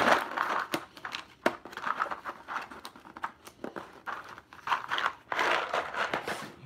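Cardboard packaging being handled and opened: irregular crinkling and rustling with a few sharp taps and clicks.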